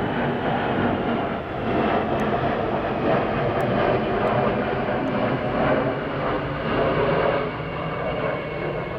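Boeing KC-135R's four CFM56 turbofan engines as it passes low overhead: a loud, steady jet rush with a faint high whine on top, swelling a little in the middle.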